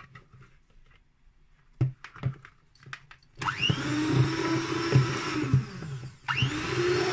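A few light taps, then an electric hand mixer switches on about three and a half seconds in, its motor rising in pitch as it spins up and its beaters whirring through thick cake batter. It cuts out briefly just after six seconds, then starts up again.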